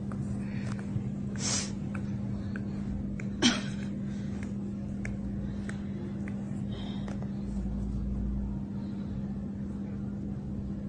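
A person's short sharp breaths and one brief, loud gasp about three and a half seconds in, over a steady low hum.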